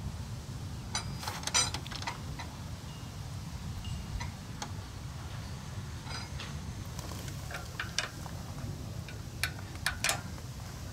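Scattered sharp metallic clicks and taps of brass air-hose quick-connect fittings being handled and snapped together, over a steady low rumble.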